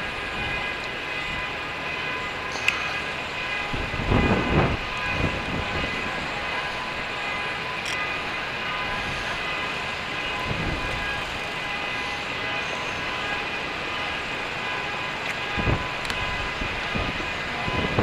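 City street traffic noise: a steady mechanical hum holding several steady tones, with short low rumbles about four, ten and a half, and fifteen and a half seconds in.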